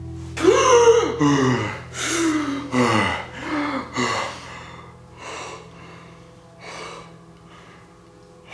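A young man gasping and panting hard, sharp breaths with a voiced catch that falls in pitch, about one every three-quarters of a second, growing fainter after about five seconds.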